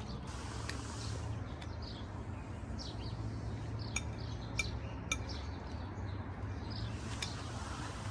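Cutlery clinking against a dish, about six separate light clinks spread out, with birds chirping.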